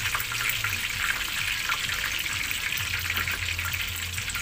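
Pork belly deep-frying in a wok of hot oil: a steady sizzle full of small, quick crackles and pops. This is the second frying that crisps the skin of the boiled, cooled lechon kawali.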